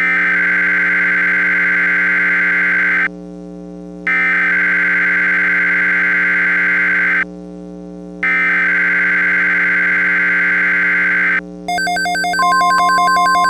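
Emergency Alert System SAME digital header: three harsh, rasping data bursts of about three seconds each, a second apart, over a steady low hum. Near the end a steady single-pitch NOAA Weather Radio warning alarm tone starts under a pulsing electronic sound, signalling the tornado watch that follows.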